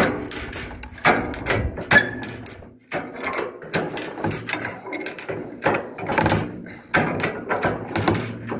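Twine and logs of a Rabaud Fagmatic wood bundle cracking and creaking as the manual lever tensioner is pumped. The cracks come again and again, about one a second, with light ratchet-like ticks. The cracking is a good sign: the twine is pulling the knots tight.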